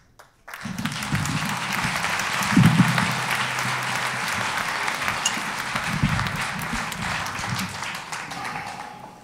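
Theatre audience applauding, starting about half a second in and tapering off near the end.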